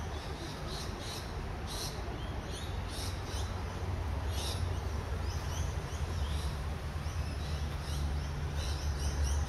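Small birds chirping: short high calls, scattered irregularly, over a steady low rumble.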